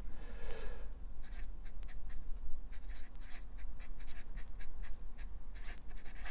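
Felt-tip marker pen writing letters on a white board: a quick run of short strokes, one for each pen line.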